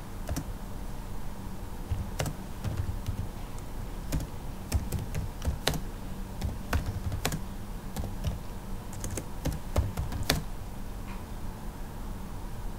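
Typing on a computer keyboard: irregular keystrokes, some struck harder than others, over a low steady hum.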